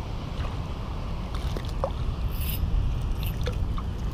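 A small hooked fish splashing at the water's surface as it is reeled in on ultralight tackle, with a short splash about two and a half seconds in. Wind rumbles on the microphone underneath.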